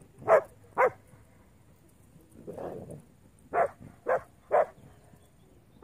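A dog barking: two sharp barks about half a second apart, then a pause, then three more barks in quick succession.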